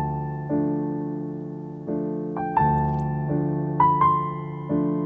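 Slow, gentle piano music: soft chords struck about once a second, each ringing and fading, with a simple higher melody over them.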